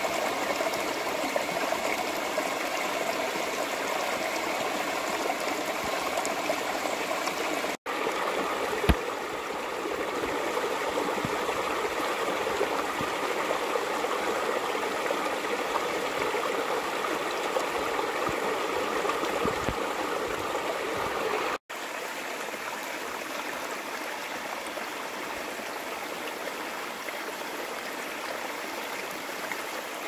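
Small stream cascading over mossy rocks: a steady rush and splash of falling water, broken twice by a brief silent gap. A single sharp click stands out about nine seconds in.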